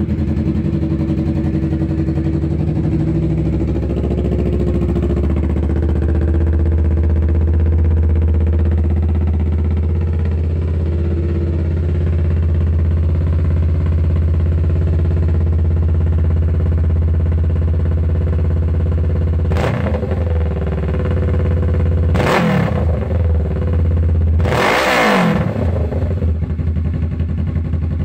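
Kawasaki Vulcan 650 S parallel-twin engine through an aftermarket TBR exhaust, idling high on its automatic choke just after a cold start. It is blipped three times about two-thirds of the way in, and there is no popping on the overrun.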